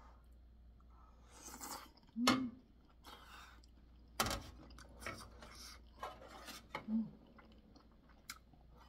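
Close-up mouth sounds of eating chewy, spicy boneless chicken feet: wet chewing and slurping. Sharp clinks of chopsticks against a bowl come at about two and four seconds in, and these are the loudest sounds.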